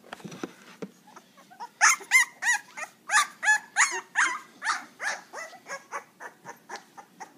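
A two-week-old puppy cries in a rapid string of high-pitched whimpers and yelps, about three a second, starting about two seconds in, as it is lifted and held in a hand.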